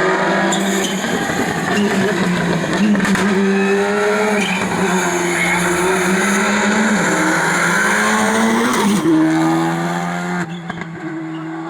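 Rally car engine running hard, its pitch climbing and dipping repeatedly as it shifts through the gears, before fading near the end.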